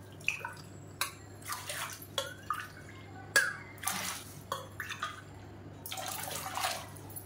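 Water poured cupful after cupful from a small steel tumbler into an aluminium pressure cooker, splashing as each cup goes in, with a few sharp knocks of the metal vessels, the loudest about three seconds in.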